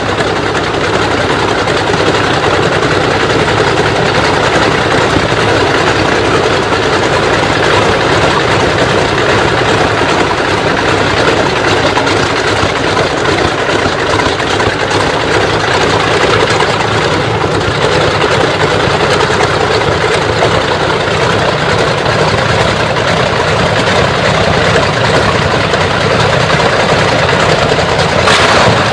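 BMW V12 aircraft engine of the Brutus race car running at idle through short open exhaust stubs that spit flames: a loud, steady, rough rumble. A sharp bang sounds near the end.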